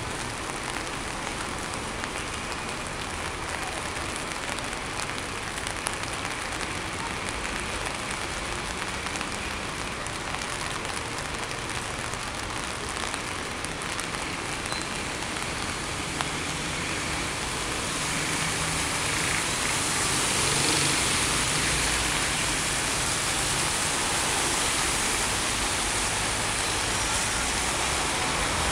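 Rain falling on a city street, with the hiss of traffic on wet pavement. The noise grows louder about two-thirds of the way through.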